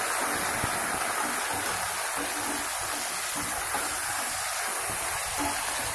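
Chopped snake gourd and potatoes sizzling steadily in hot oil in a steel kadai as they are stirred.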